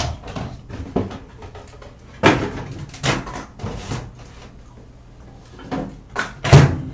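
Microwave oven being handled: a few separate knocks and clicks of its door and the dish, with the loudest thump near the end as the door is shut.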